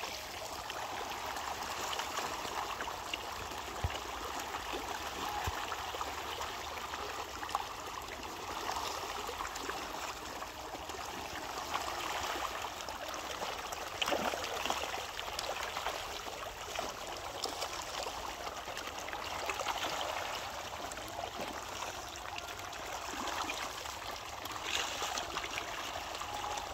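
Water churning steadily with many small splashes as a crowd of fish thrashes at the surface of a pond, feeding on scattered fish feed.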